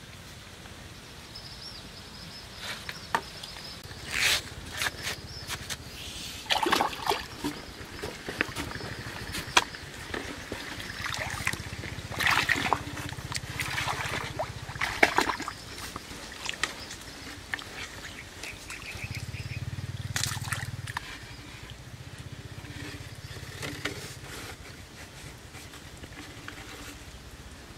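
Bamboo poles and rope being handled while a bamboo bucket lift is rigged and worked by hand: irregular knocks and clicks, with some trickling water.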